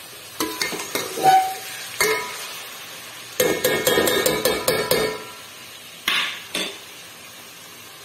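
Metal spoon stirring diced carrots in an aluminium pot, scraping and knocking against the pot's side and bottom. Scattered clicks early on, then a dense stretch of scraping in the middle, and two short scrapes near the end.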